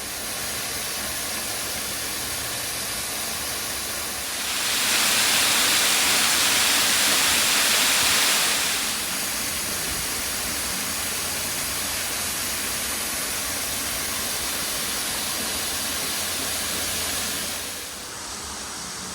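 Steady rush and splash of a waterfall of about 36 feet with modest flow, a constant hiss of falling water. It swells louder for about four seconds near the middle, then settles back.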